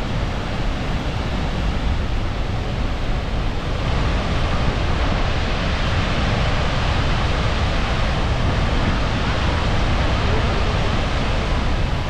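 Steady rush of the Skógafoss waterfall's falling water, growing louder and brighter about four seconds in.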